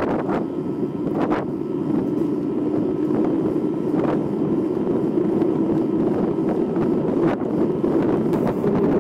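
Wind buffeting the microphone of a handlebar-mounted camera over the steady hum of mountain bike tyres rolling on asphalt, with a few sharp clicks and rattles from the bike.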